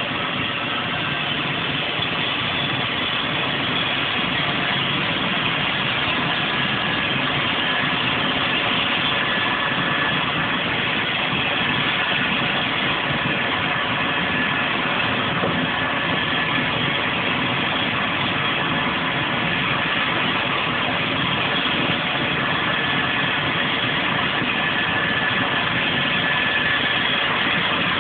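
Rescue helicopter's turbine engine and rotor running steadily on the ground ahead of take-off, a steady high whine over the rotor noise.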